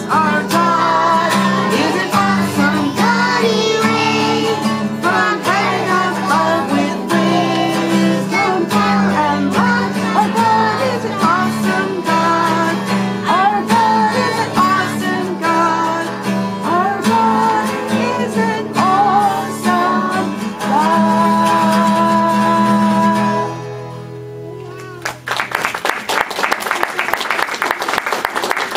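Young children singing a song with guitar accompaniment; the song ends about four-fifths of the way through, and applause follows.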